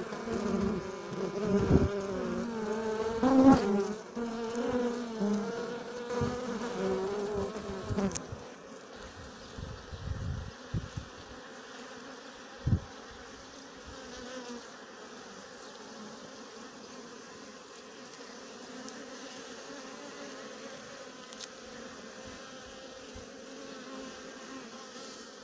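Honeybees (Sicilian black bees, Apis mellifera siciliana) buzzing over an opened hive. For the first eight seconds the hum is louder and wavers in pitch as bees fly close by. After that it settles into a quieter, steady hum, with a few knocks, the clearest one a little past the middle.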